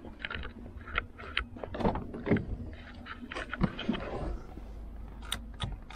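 Footsteps and a person opening a car's driver door and climbing into the seat: a few scattered knocks and rustles over a steady low rumble.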